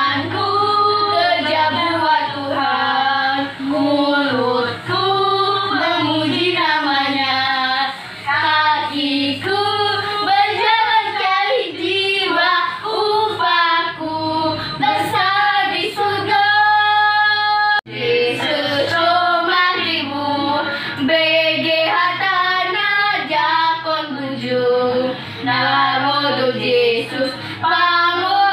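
Two children, a boy and a girl, singing a song together with a steady melody, holding one long note about two-thirds of the way through.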